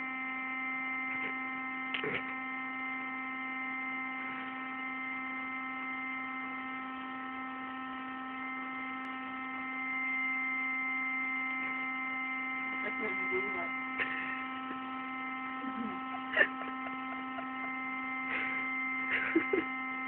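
Electric air pump running steadily as it inflates an airbed, a constant droning hum with several steady tones stacked over it. A few faint knocks and rustles come through in the second half.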